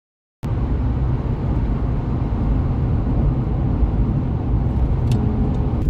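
Car driving at highway speed, heard from inside the cabin: steady engine and road noise that starts abruptly about half a second in, after a moment of silence.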